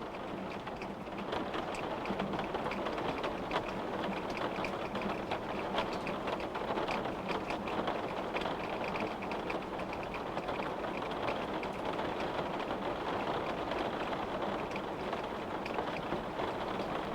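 Steady rain falling, with many small drops ticking against a windowpane over the even hiss of the downpour.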